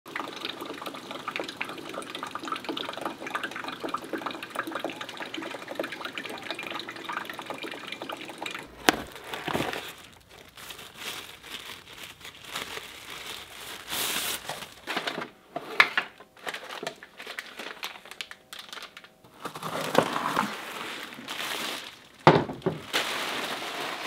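Water running steadily from a Dometic Go battery-powered faucet on a hydration jug. About nine seconds in there is a sharp knock, and then the sound turns to irregular rustling of tissue paper and cardboard packaging with handling knocks as the faucet is unboxed.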